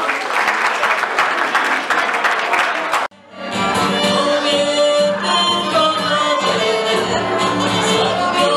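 Audience applause for about three seconds, cut off suddenly. Then a mixed choir singing with accordion accompaniment.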